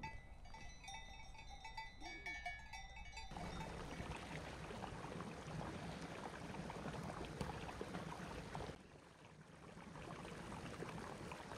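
Clinking, bell-like tones for about the first three seconds. Then the steady rush of a shallow stream running over stones, dipping briefly before resuming.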